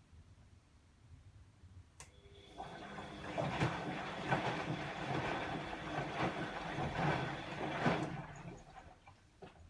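Bosch WAE24162GB03 washing machine during a rinse cycle: a click about two seconds in, then about six seconds of rushing, sloshing water that stops fairly abruptly.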